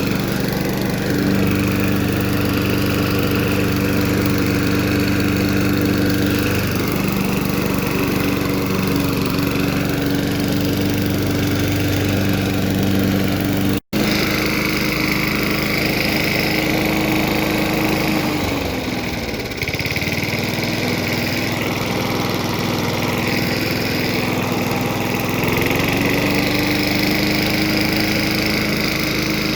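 1984 Snapper push mower's 3.5 hp Briggs and Stratton single-cylinder engine running steadily. About two-thirds in, its speed drops for several seconds, then climbs back up.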